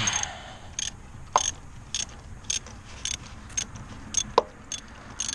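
Socket ratchet wrench clicking at an even pace of about two clicks a second while turning a spark plug in a 3.5 L V6, with a brief metallic ring on two of the clicks.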